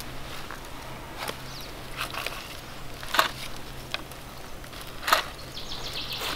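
Wood campfire crackling: a handful of sharp pops spaced a second or so apart, over a steady low hum.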